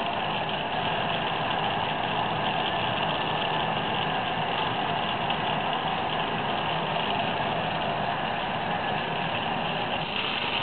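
Lampworking bench torch flame hissing steadily while borosilicate glass is heated in it.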